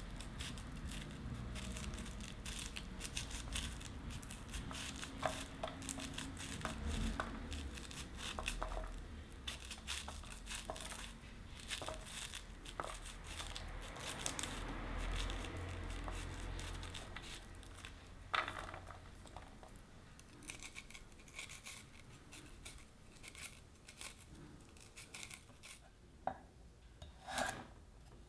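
A kitchen knife slicing kernels off an ear of corn, a dense run of crisp crackling cuts. The cuts thin out in the last third, with a few sharper knife strokes on a wooden cutting board near the end.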